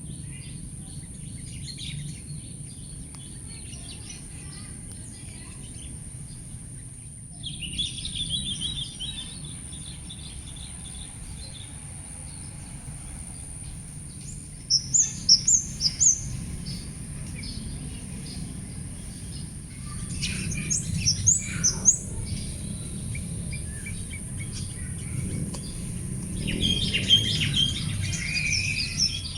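Birds chirping in several short bursts of quick high notes, about a second or two each, over a steady high-pitched hiss and a low background rumble.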